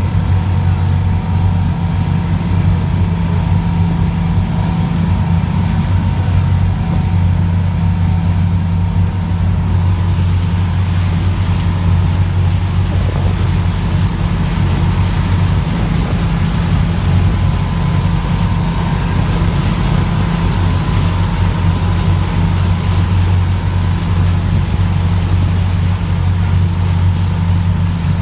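Fishing boat's engine running steadily under way, a deep constant hum, with the rush of wake water and wind that grows louder about ten seconds in.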